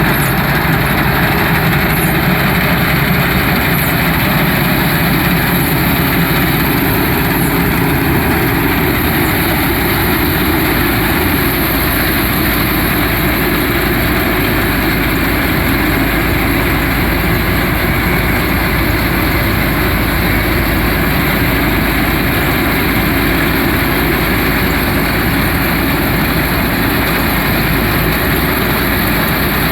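Panasar G-80 small combine harvester running steadily, its engine and machinery making a continuous heavy drone, the low tone shifting slightly about eight to ten seconds in.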